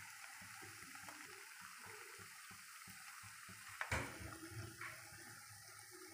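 Hot oil sizzling steadily as breadcrumb-coated potato cheese rolls shallow-fry in a pan, with one short knock about four seconds in.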